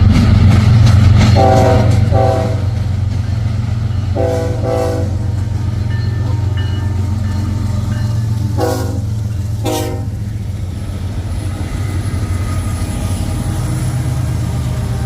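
Diesel freight locomotive running with a steady low rumble as the train passes. Its horn sounds three pairs of short blasts, the first about a second and a half in, the next around four seconds and the last near nine seconds.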